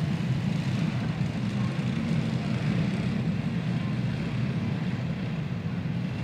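Several racing karts' small single-cylinder clone engines running together in an indoor arena, blending into a steady rumble.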